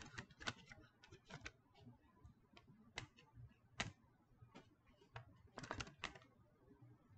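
Faint, irregular clicks and taps of a plastic multi-disc DVD case being handled as its hinged disc tray is turned over.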